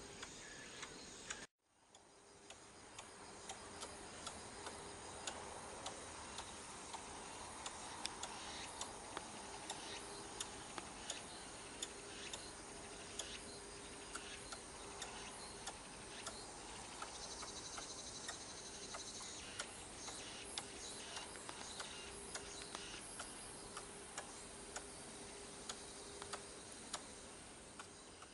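Quiet outdoor ambience with a faint steady hum and many sharp, irregular clicks, roughly one or two a second, after a brief dropout about a second and a half in.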